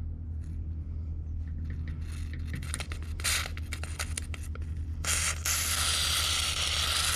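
Aerosol can of white lithium grease sprayed through its straw: a steady hiss starts about five seconds in and runs on for a few seconds. Before it come light clicks and handling noises, and a low hum runs underneath.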